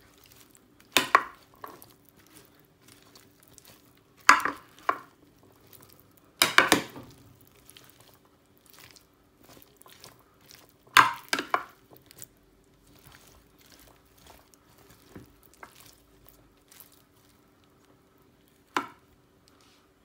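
A spatula tossing chopped fruit in a bowl, scraping and knocking against the bowl in several short bursts with quieter stirring between them.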